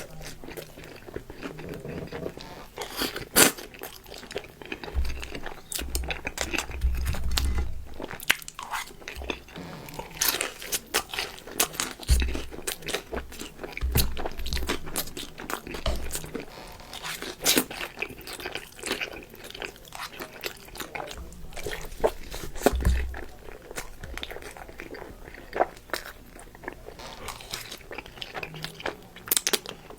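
Close-miked crunchy bites and chewing of crispy chicken wings, many irregular sharp crunches one after another.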